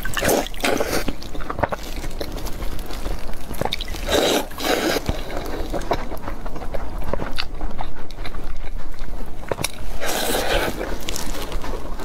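Close-miked wet eating sounds: bread soaked in milk tea is bitten, sucked and chewed, with dripping and small mouth clicks, and three louder slurps of about a second each.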